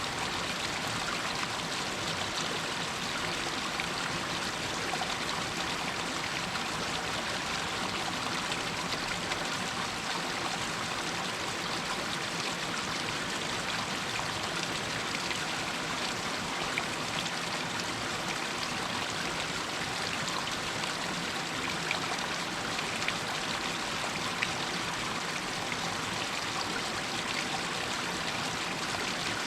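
Water running and trickling down over rocks in a small hillside stream, a steady splashing rush with small drips and splashes on top.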